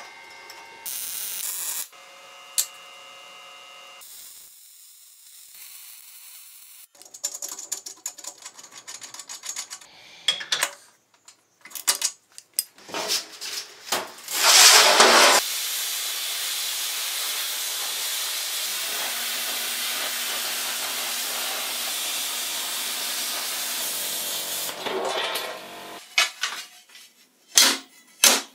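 Workshop tool sounds in short separate bits: scattered clicks and knocks, a brief loud burst of hiss, then a steady hiss lasting about nine seconds, with clattering near the end.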